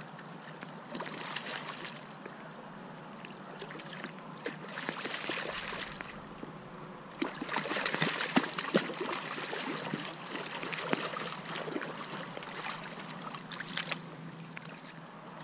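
Shallow river water splashing and sloshing in irregular bursts, with small clicks and knocks mixed in; the longest and loudest stretch comes in the middle.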